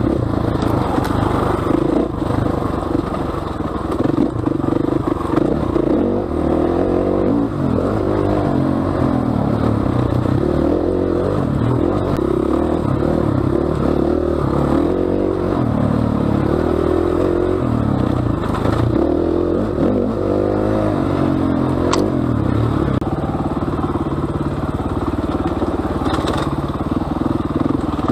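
KTM 500 EXC enduro bike's single-cylinder four-stroke engine being ridden along tight dirt single track, its pitch rising and falling over and over as the throttle is opened and closed. Clatter and scraping come from the bike working over the rough ground.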